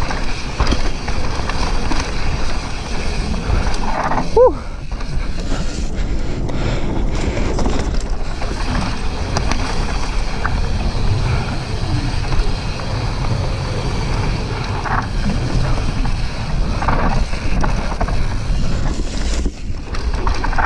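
Propain Tyee mountain bike descending a dirt trail fast, heard from a camera on the rider: tyres rolling over dirt, the bike rattling over bumps, and wind rushing over the microphone. A short squeal about four seconds in.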